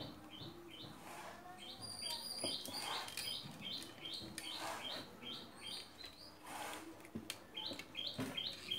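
A bird chirping in the background, a run of short high notes about three a second, broken by a pause of a second or so before starting again near the end.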